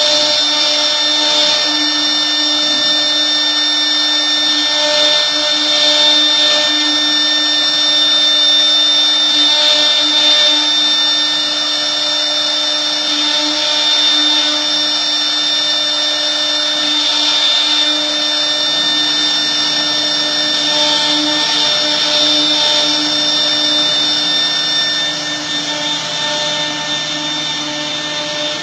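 CNC router spindle running steadily, a constant motor whine over the noise of the machine.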